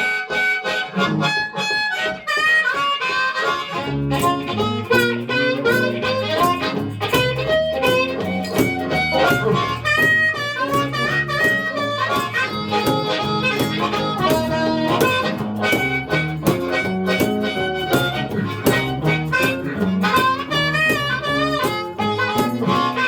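Blues harmonica playing a boogie tune with bent and wavering notes, over guitar accompaniment. A low, steady rhythm part joins about four seconds in.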